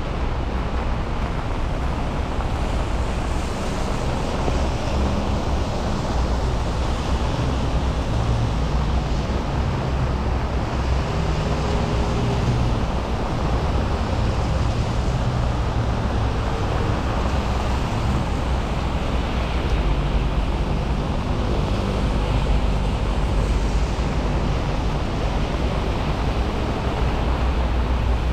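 Steady street noise on a wet day: a constant hiss of rain and wet road under the low rumble of passing vehicles, with engine hums coming and going.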